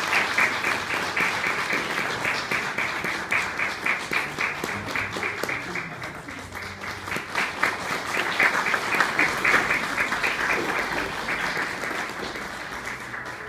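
Audience applauding: dense, steady clapping that slowly thins and fades toward the end.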